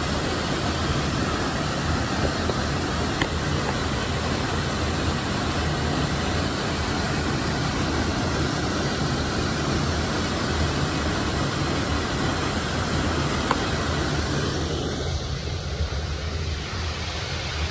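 Steady vehicle noise: a low running hum under a wide rushing sound, easing a little near the end.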